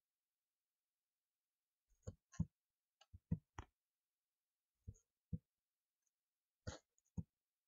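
Sharp clicks of a computer keyboard and mouse, about a dozen in small groups, with silence between.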